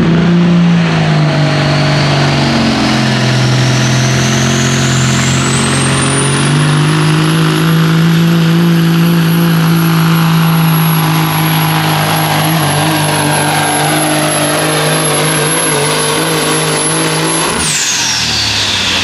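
Caterpillar diesel engine of a pulling semi truck at full throttle under the sled's load: a steady deep drone, with a turbocharger whistle that climbs over the first several seconds and then holds high. Near the end the throttle is cut as the pull finishes. The engine note drops off abruptly and the turbo whistle winds down.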